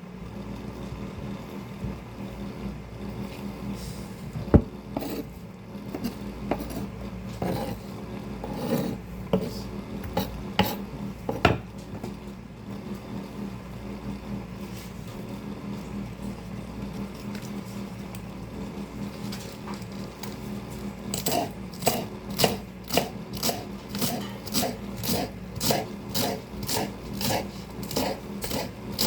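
Greens being chopped: scattered knocks at first, then a steady run of chops at about two a second from about two-thirds of the way in. Under it, an electric fan hums steadily.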